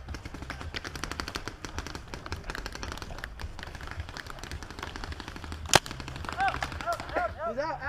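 Paintball markers firing in fast, dense strings of pops, then one much louder crack about six seconds in, followed by a shouted voice near the end.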